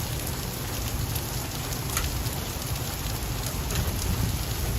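Heavy rain pouring down with hailstones striking and bouncing, scattered sharp ticks over a steady hiss, one clearer hit about two seconds in.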